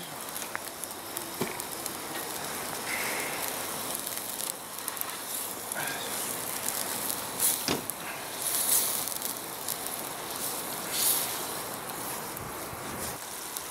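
Ground meat and water sizzling in an iron skillet over a wood fire, with the fire crackling. A few sharper knocks and scrapes come from the pan and spoon on the grate around the middle.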